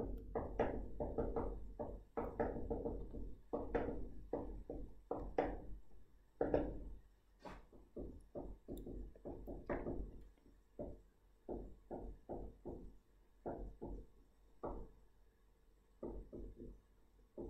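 Irregular light taps and knocks, several a second, from a pen or stylus writing by hand on a writing surface.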